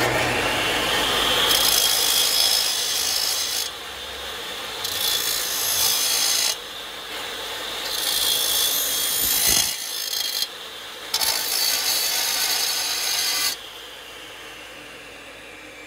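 Electric chop saw with a 14-inch diamond-coated blade coming up to speed, its whine rising. Steel square tubing is ground against the blade's diamond-coated face four times, each a few seconds of harsh grinding that deburrs and smooths the cut end. Near the end the saw is switched off and its whine falls as the blade spins down.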